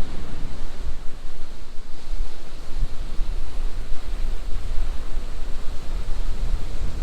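Wind buffeting the microphone in an uneven low rumble, over the steady wash of surf on the beach.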